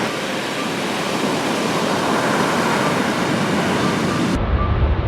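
Steady, even rushing noise, broken off abruptly about four seconds in by a duller, low rumble.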